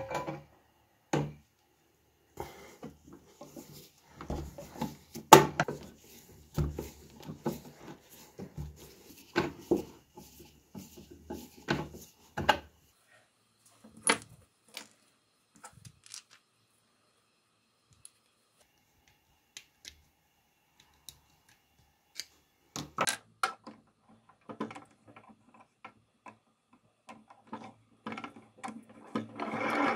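Intermittent clicks, taps and knocks of small metal and plastic telephone parts being handled and fitted by hand on a bench as a crank handle is assembled onto an antique telephone. Near the end a steady mechanical whirring starts.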